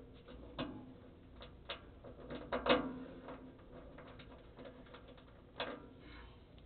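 Scattered small clicks and knocks of metal parts and screws being handled and set by hand into a bowling pinsetter's setting table, loudest about two and a half seconds in, over a faint steady hum.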